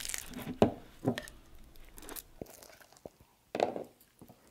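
Wooden spoon scraping and knocking against a bowl and a glass mason jar as sticky ground ginseng-and-jujube paste is packed in, in a few separate strokes with quiet gaps, one more near the end.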